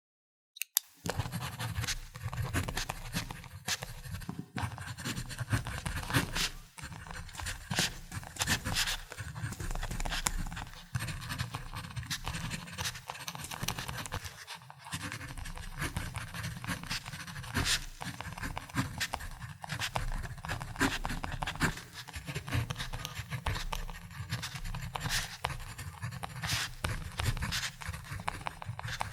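Ballpoint pen writing on paper: a steady run of short scratching strokes with brief pauses between words. A single sharp click comes just before the writing starts.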